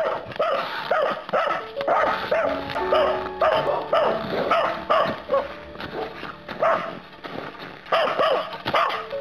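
Dog barking over and over, about three barks a second, with a short lull about two-thirds through, over background music.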